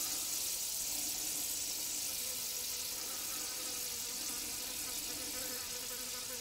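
Butane gas hissing steadily as a refillable gas canister is filled from a disposable butane can through a homemade brass filler tube, with a faint buzzing tone in the hiss.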